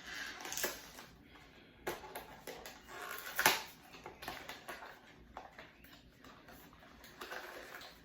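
Handling noises in a small room: soft rustles and light knocks, with one sharp click about three and a half seconds in.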